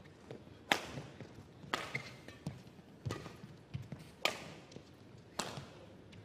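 Badminton rackets striking a shuttlecock back and forth in a rally: a sharp crack about every second, five in all, with lighter knocks of players' footsteps on the court between.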